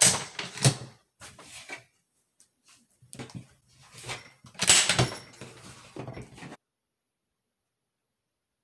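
Weatherby bolt-action rifle handled on a table: a few sharp metallic clicks and clacks as the bolt is worked, the loudest about five seconds in. The sound drops out entirely for the last two seconds.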